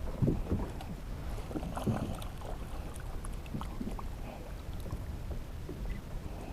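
Water sloshing and splashing against a fishing kayak's hull in irregular surges, with scattered small knocks and clicks.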